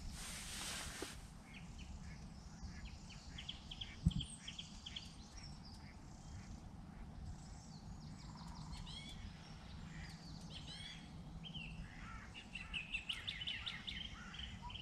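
Small birds chirping and singing over a faint low outdoor rumble, with a single sharp low knock about four seconds in.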